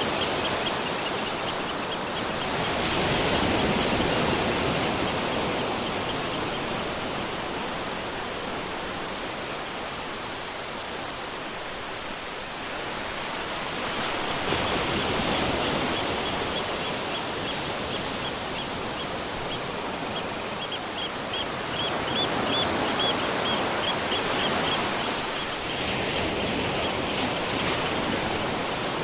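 Ocean surf washing on a shore, a steady rush of water that swells and eases as waves come in, loudest about three seconds in, around halfway, and again near the end. Through the middle a bird calls in a quick run of short high notes.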